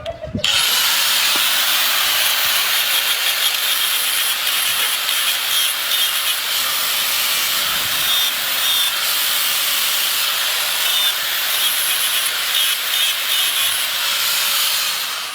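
Steel blade of a corn-scraping tool being ground sharp: a steady, loud hiss of metal on the grinder that starts abruptly and holds evenly.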